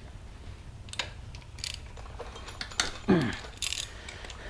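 Hand ratchet wrench clicking while engine bolts are worked loose, with scattered metal clinks. A louder clank comes about three seconds in.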